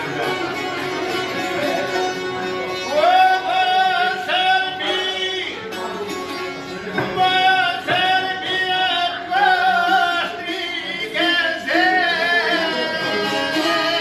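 Live folk music: several long-necked plucked lutes strum and pick a steady accompaniment while a man sings over them. He comes in about three seconds in, in long held phrases with a wavering vibrato, pausing between lines.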